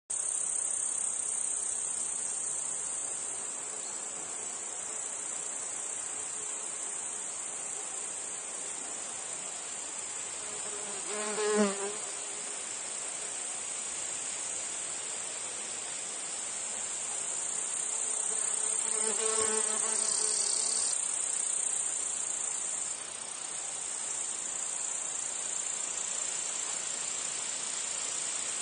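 Steady high-pitched chorus of meadow insects, cicadas and crickets. A fly buzzes past twice, about eleven seconds in and again near twenty seconds, the first pass the louder.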